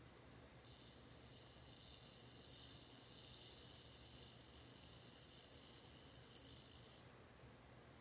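Male Japanese bell cricket (suzumushi) singing one long, high, ringing trill at a steady pitch. It swells in over the first second and cuts off suddenly about seven seconds in.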